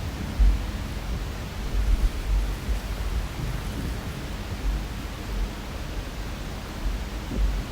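Several dull, low thuds at irregular intervals over a steady hiss, which the uploader takes for knocking on the floor carried through as bass.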